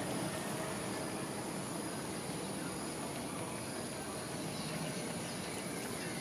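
Steady, high-pitched insect chorus over a low, even rumble of background noise.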